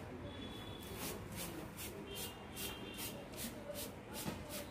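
Liquid squirting in short hissy spurts from a plastic bottle shaken over weeds, about three spurts a second.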